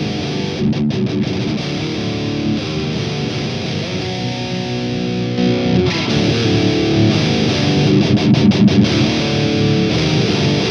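Heavily distorted electric guitar played through the Grindstein HM-2-style plugin, a Swedish death metal chainsaw tone. About six seconds in it turns brighter and a little louder, as the gate's boost is switched in.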